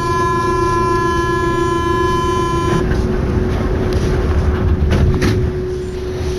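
Metro train's electronic warning tone sounding steadily for nearly three seconds, then cutting off abruptly, over the constant hum and rumble of an MP89CA train. The tone is typical of the door-closing signal.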